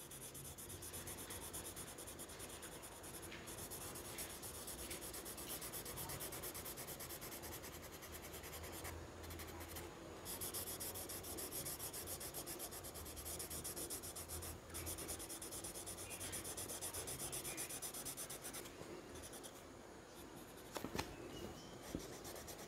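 Faint scratching of a pastel crayon rubbed back and forth on paper, colouring in a sky area with quick repeated strokes. A couple of faint clicks near the end.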